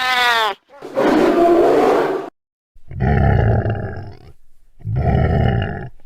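Horror monster sound effects: a short pitched howl that rises and falls, then a harsh roar, a brief pause, and two low rumbling growls, each with a thin falling whine over it.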